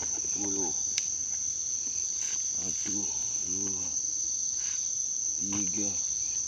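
Steady chorus of night insects, a constant high trill, with a few short, low voice-like sounds now and then and a single click about a second in.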